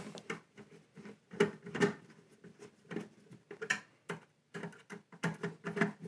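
Screwdriver turning the screw terminals of an Ender 3 power supply down onto crimped fork connectors: soft, irregular small clicks and scrapes of metal on metal.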